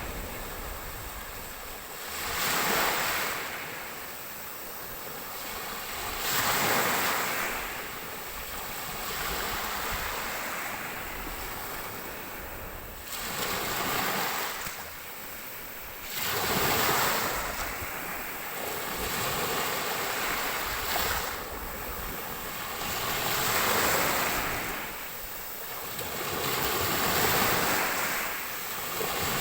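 Ocean waves breaking and washing up a shore, each surge swelling up and falling back every three to four seconds.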